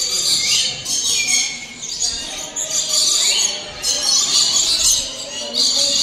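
A flock of caged aviary birds squawking and chattering: harsh, overlapping calls that come and go in bursts, some sliding down or up in pitch.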